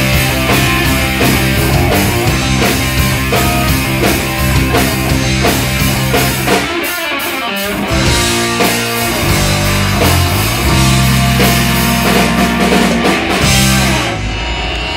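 Live rock band playing an instrumental passage: electric guitar, bass and drum kit. The low end drops out briefly about seven seconds in before the full band comes back in.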